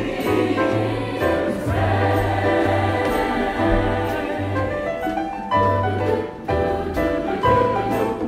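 Live student orchestra and choir performing a musical-theatre number: voices singing over strings, with a bass line moving in steady separate notes.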